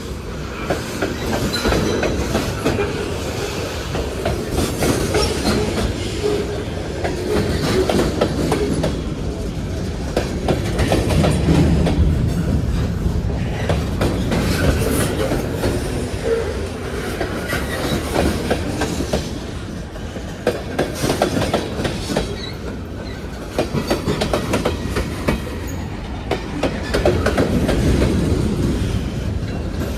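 Freight cars of a Union Pacific manifest train rolling past, their steel wheels clattering and clicking over the rail joints in a steady stream.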